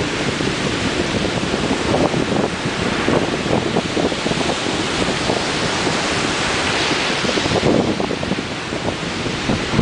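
Ocean surf: waves breaking and washing on the shore in a steady rush, with wind buffeting the microphone.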